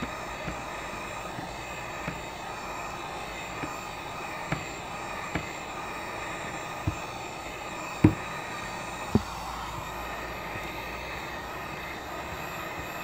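Heat gun running steadily, its fan and element blowing hot air onto a phone's screen to soften the adhesive. A few light clicks or knocks stand out over it, the loudest about eight seconds in.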